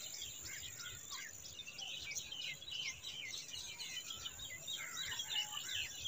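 Birds chirping: a faint, continuous scatter of short, high chirps.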